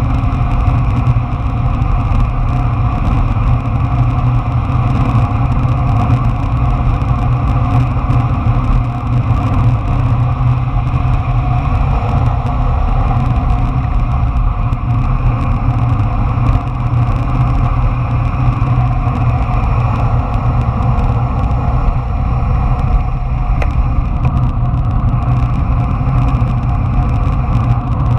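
Steady rush of wind on the microphone and wheels rolling fast over asphalt during a downhill run.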